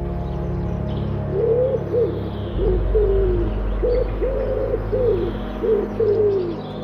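Domestic pigeons cooing: a run of repeated low coos, each about a second long, starting about a second in, over a steady low rumble.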